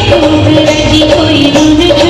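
Rajasthani folk music accompanying a stage dance: a melody that bends in pitch over a steady low beat.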